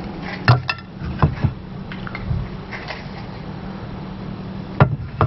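A dinner plate and fork knocking and clinking as the plate is handled: a few sharp knocks in the first second and a half and one more near the end, over a steady low hum.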